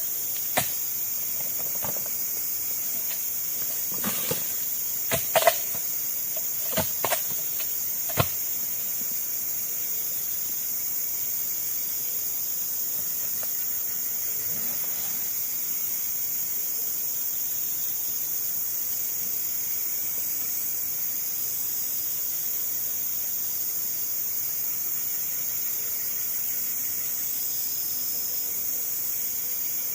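Steady high-pitched chorus of forest insects such as crickets and cicadas. Several sharp clicks or knocks sound in the first eight seconds, two of them close together about five seconds in.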